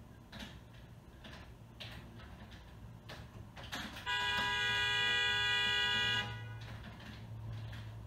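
Car horn sounded in one long, steady blast of about two seconds, a frustrated driver's honk at stalled traffic.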